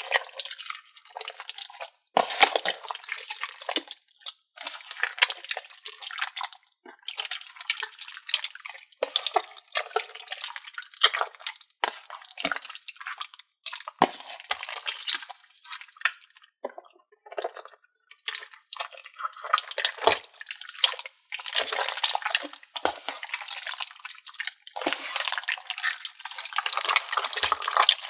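Slime and putty being squeezed and kneaded together by hand, giving wet squishing, crackling and popping sounds in irregular bursts with short pauses between them.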